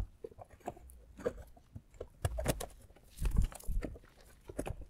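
Plastic intake manifold being worked into place in an engine bay: irregular clicks, knocks and scraping of plastic against hoses and wiring, with heavier knocks about two and a half and three and a half seconds in.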